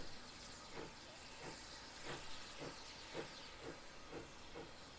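Distant Lancashire & Yorkshire Railway Class 21 'Pug' 0-4-0 saddle tank steam locomotive working a short goods train: its chimney exhaust beats at about two a second, quickening slightly as it gets under way, over a steady hiss of steam.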